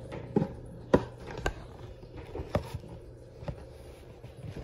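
Steady low hum of a small aquarium's filter, with about six sharp, irregular knocks and clicks over it; the loudest comes about a second in.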